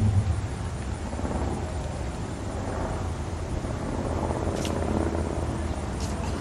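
Steady outdoor background rumble, low and unevenly fluctuating, with a couple of brief faint high chirps about four and a half and six seconds in.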